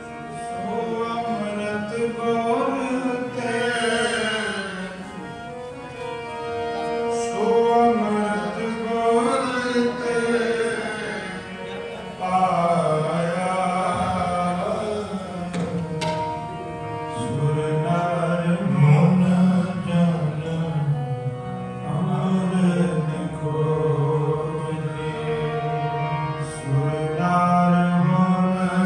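Sikh kirtan: men singing a hymn with harmonium accompaniment and tabla, the harmonium holding sustained notes under the voices.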